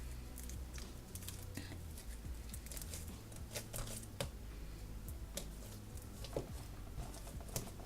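Sticky slime being squished and stretched by hand, giving irregular little clicks and pops.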